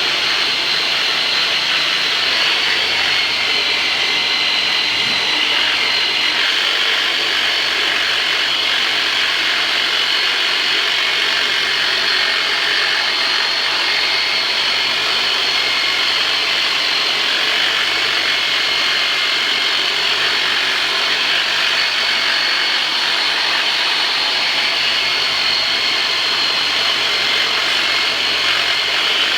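Handheld electric high-speed vibration therapy tool running steadily with a high-pitched whine, worked over strained lower back muscles to relax them.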